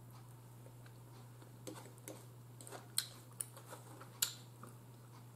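Faint eating sounds from a person chewing meat, with a handful of small sharp ticks and clicks from about a second and a half in, over a low steady hum.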